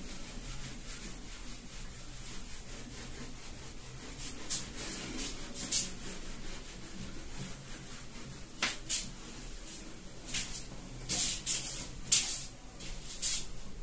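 A whiteboard being wiped clean by hand: short rubbing swishes at irregular intervals, more of them in the second half.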